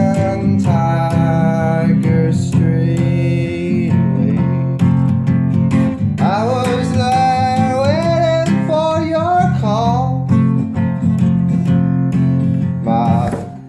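Song with acoustic guitar strummed under a melody line that slides and bends in pitch, the music dropping away right at the end.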